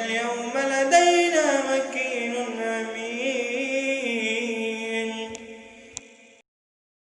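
A man's voice reciting the Quran in melodic tajweed chant, drawing out long, ornamented held notes that fade away about five to six seconds in and then stop.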